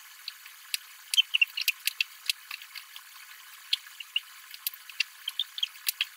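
Kitchen knife cutting burdock root into thin strips on a cutting board, played back fast-forwarded: rapid, irregular clicks of the blade on the board, thin and tinny with no low end, with a few short high chirps mixed in.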